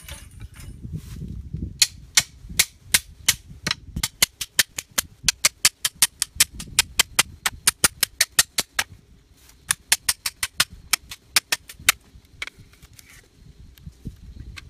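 A hammer striking the back of a cleaver wedged in the top of a green bamboo pole, driving the blade down to split the pole lengthwise. Sharp cracks come about four to five a second, with a short pause partway, and stop about twelve seconds in.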